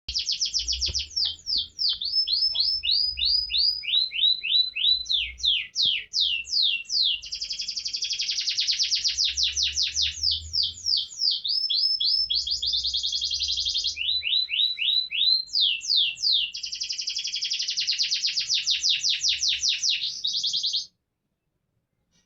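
Canary singing a long, loud song made of fast trills of repeated notes, switching to a new trill every second or two. The song cuts off abruptly near the end.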